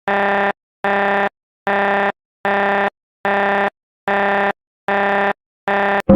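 Emergency-alert-style alarm: a low, buzzy tone pulsing eight times at a steady rate, each pulse about half a second long with short gaps between.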